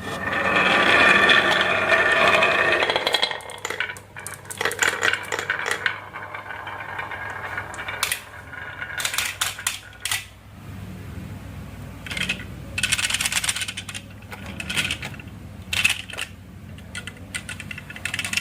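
Marbles rolling and clattering down a wooden marble run: a loud continuous rolling rattle for about the first three seconds, then scattered clacks and short rattles as marbles knock against the wooden track and each other. A steady low hum runs underneath.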